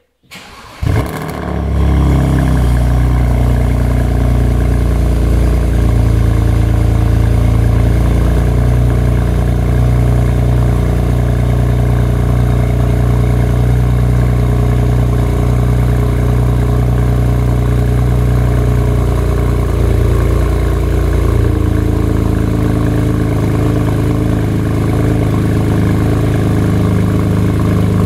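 BMW E92 335i's turbocharged straight-six, fitted with an Eisenmann Race exhaust, starting: a brief crank and a loud flare about a second in, then a steady, deep idle. The idle note changes about 21 seconds in and runs on steadily.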